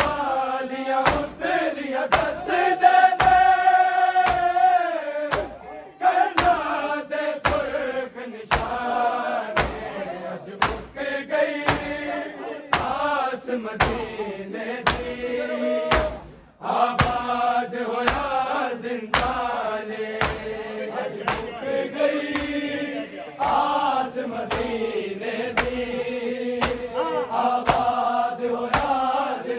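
A group of men chanting a noha, a mourning lament, in unison with a lead voice, over a steady beat of hands striking chests (matam).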